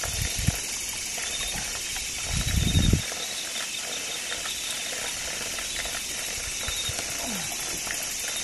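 Steady night chorus of insects with a faint pulsing trill, broken by low rustling and thumping handling noises just after the start and more strongly between about two and three seconds in, as someone moves and grabs through wet grass and shallow water.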